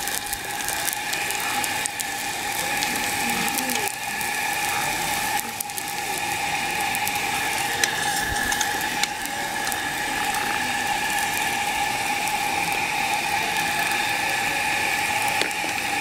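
Maida paratha frying in ghee on a hot iron tawa: a steady sizzling with fine crackling, over a steady high hum.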